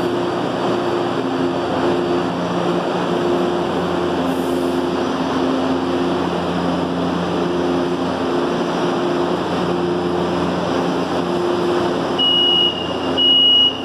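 Standing H-series metro train (São Paulo Metro Line 3) with its auxiliary equipment running: a steady hum whose pitch steps back and forth every second or so. About twelve seconds in, a high beeping begins and repeats in short pulses, the warning before the doors close.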